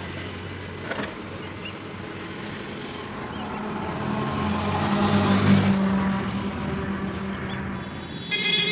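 Road traffic: a motor vehicle's engine passes, growing louder to a peak about halfway through and then fading. A vehicle horn sounds near the end.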